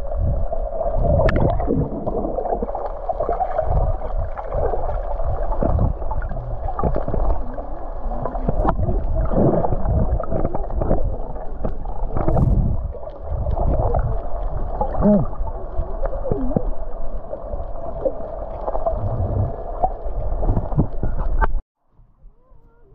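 Muffled water noise picked up by a camera's microphone below the surface: a dense gurgling rush with irregular knocks and bubbles. It cuts off abruptly near the end, and only faint open-air noise remains.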